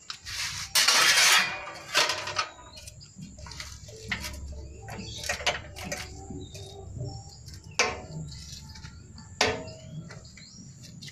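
Homemade manual sheet-metal brake folding a strip of galvanized steel sheet. There is a loud metallic rattle of the sheet about a second in, then a few sharp clanks from the clamp and bending lever.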